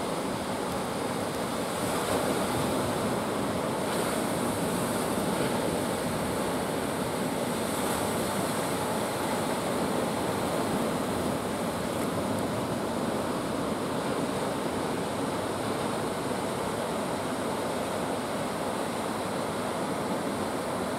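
Ocean surf breaking and washing steadily, a continuous rushing noise that swells a little every few seconds.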